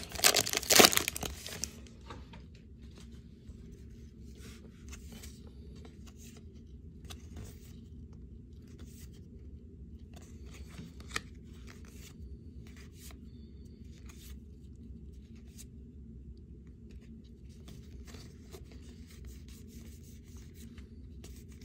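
Foil wrapper of a Topps Big League Baseball card pack torn open in the first second or two, with loud crinkling and tearing. Then faint rustles and flicks of trading cards being handled and shuffled through in the hand, over a steady low hum.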